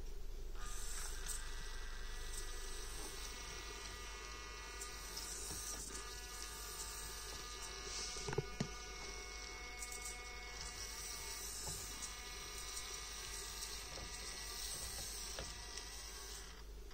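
Micro RC crawler's N20 105 rpm geared motor whining steadily as the truck crawls over rocks, starting about half a second in and stopping just before the end. Two sharp knocks come a little past halfway.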